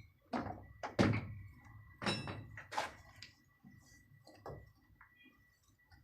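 A series of about seven sharp knocks and thuds at irregular intervals, the loudest about a second in.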